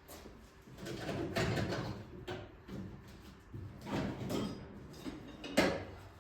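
Irregular clattering and knocking of tools on a Clinton small engine, with one sharp, loud metal strike near the end: a hammer blow on the nut threaded onto the crankshaft, the 'shock method' for jarring the flywheel loose from its taper.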